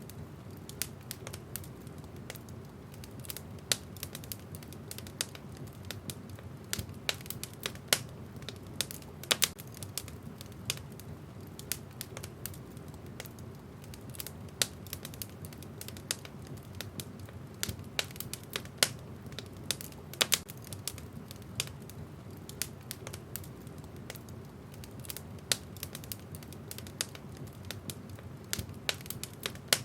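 Wood fire in a fireplace crackling: irregular sharp pops and snaps, several a second, over a low steady rumble of the flames.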